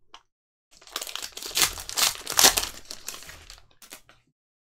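Foil trading card pack wrapper crinkling and tearing as gloved hands peel it open. It comes in irregular bursts for about three seconds and stops suddenly a little after four seconds in.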